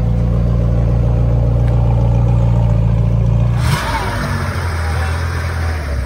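A supercar's engine running with a steady deep drone. About four seconds in, it gives way abruptly to the rougher, lower-pitched engine of a classic air-cooled Porsche as it moves slowly off.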